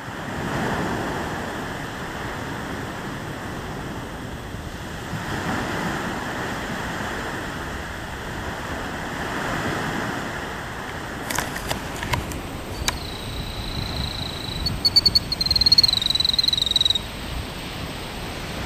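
Steady rustling wind noise, then a few sharp clicks, and about thirteen seconds in a killdeer's single long, high call that breaks into a rapid trill and stops about four seconds later: the alarm call that goes with its broken-wing distraction display near the nest.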